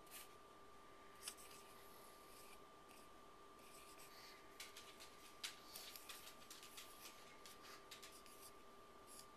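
Faint scratching strokes of a dry-erase marker writing letters on a dry-erase painted surface, in short irregular strokes over a faint steady hum.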